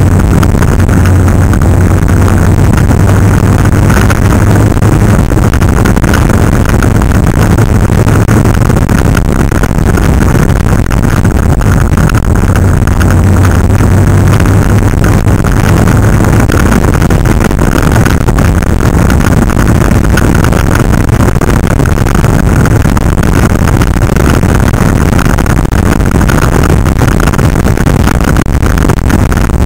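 Motorcycles running at road speed on a group ride, loud and steady, with heavy wind noise on the microphone; a low engine hum is strongest in the first half.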